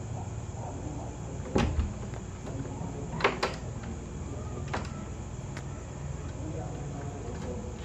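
A handful of sharp clicks and knocks over a steady low background rumble: two close together about a second and a half in, two more about three seconds in, and fainter ones later.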